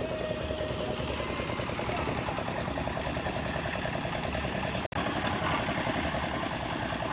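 An engine running steadily with an even, rapid pulse. It drops out for an instant about five seconds in.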